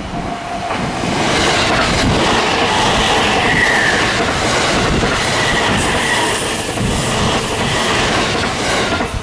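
E257 series electric limited express train rushing through a level crossing, a loud steady rush of wheels on rail that builds about a second in and eases near the end, with brief high wheel squeals in the middle. The crossing's alarm bell rings at the start before the train noise covers it.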